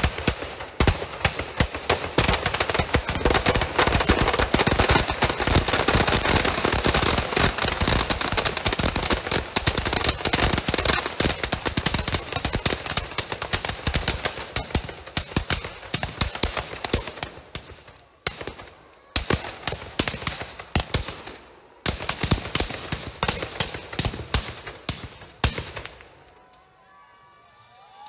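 Firecrackers packed inside a burning Ravana effigy going off in a long, dense chain of rapid bangs and crackles, with two short pauses before it dies away a few seconds from the end.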